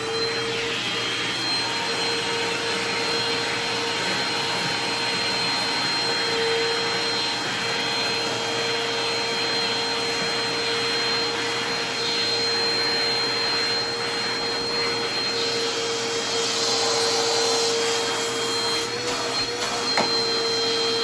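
Dirt Devil Dynamite Plus bagless upright vacuum cleaner switched on, its motor spinning up to speed within a moment and then running steadily with a constant high whine over the rush of air.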